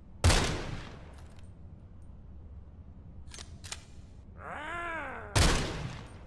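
.22 rifle fired twice, about five seconds apart, each shot a sharp crack with a short ring-off. Two faint clicks come between the shots, and just before the second shot a short pitched sound rises and falls.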